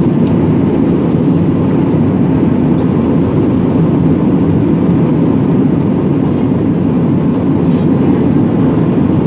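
Steady cabin noise of an Airbus A320-family airliner in flight: an even, low rush of engine and airflow heard from inside the cabin, unchanging throughout.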